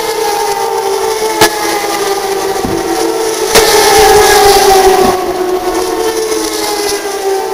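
Turismo Carretera race car engines running at high revs out of sight, a steady multi-tone drone with pitches sliding slowly down. It grows louder for a moment after a sharp pop about three and a half seconds in, and there is another pop about a second and a half in.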